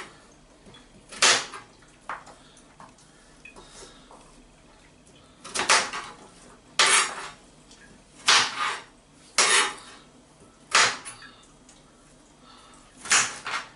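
Kitchen knife chopping carrot pieces on a chopping board: about nine sharp knocks, irregularly spaced, with a pause of a few seconds in the first half.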